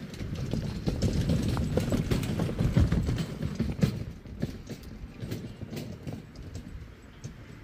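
Wheels of a loaded camping trolley rattling and rumbling over a rough track as it is pulled past, with irregular knocks and clatter. It is loudest in the first few seconds, then fades as the trolley moves away.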